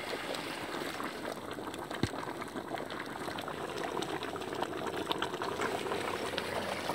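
Tomato and chicken gravy boiling hard in a large metal pot over a wood fire, a steady bubbling crackle. A single sharp knock comes about two seconds in.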